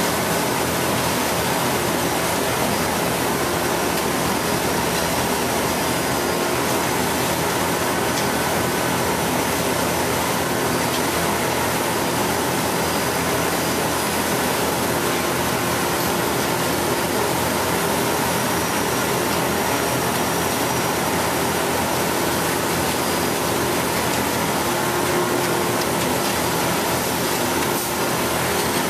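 Steady drone of a heavy engine running at a constant speed, a broad rushing noise with faint steady tones in it.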